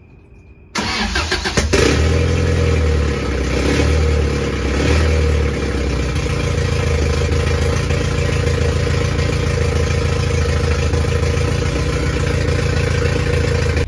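Rebuilt high-compression Toyota 22R four-cylinder engine starting about a second in. It revs up and down unevenly for a few seconds, then settles into a steady, really loud run, with octane booster just added to low-octane fuel to stop it dieseling and running rough.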